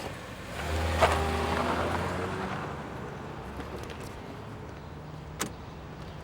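A car engine moving off: it swells about half a second in, then fades away over the next two seconds or so. A single sharp click comes about five seconds in.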